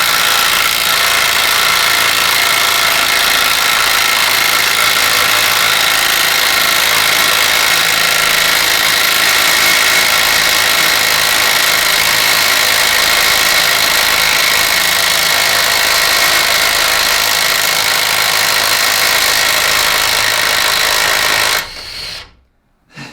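Kobalt brushless 1/4-inch impact driver hammering continuously for about twenty seconds as it drives a hard-going fastener, then stopping abruptly.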